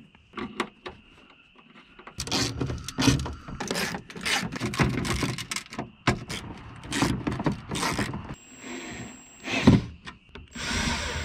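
Tools and parts being handled while a car door's bolts and trim panel are refitted: irregular clattering and rubbing with sharp clicks, starting about two seconds in.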